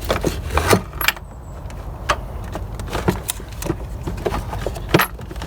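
Scattered clicks and knocks of hands working the plastic air-intake box and its rubber hoses apart under the hood, with the sharpest knock about five seconds in.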